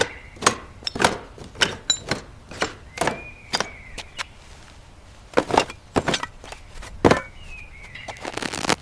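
A run of sharp, irregular knocks and clacks, with a short squeaky chirp about three seconds in and again near the end.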